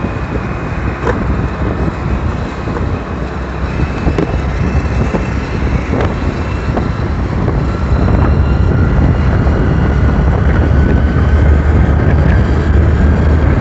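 Wind rushing over the microphone with the steady rumble of a vehicle moving along a highway; the low rumble grows louder about eight seconds in.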